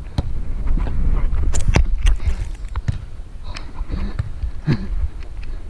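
A beach volleyball rally heard from a player's head-mounted camera: several sharp slaps of hands striking the ball and feet moving in sand, over wind rumbling on the microphone.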